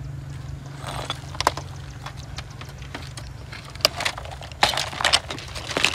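A fire-burnt flat-panel computer monitor handled in ash and charred debris: scattered sharp clicks, knocks and scrapes of its frame and panel, coming thicker from about four seconds in, over a steady low hum.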